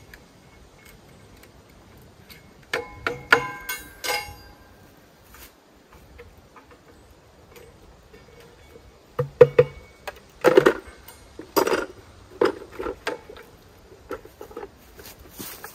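Split firewood pieces knocking and clattering against each other as they are handled and stacked. A short cluster of ringing knocks comes a few seconds in, then a run of separate knocks from about nine seconds on.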